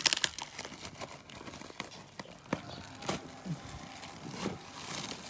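Heavy parcel packaging being pulled and torn open by hand: irregular knocks, scrapes and crinkles.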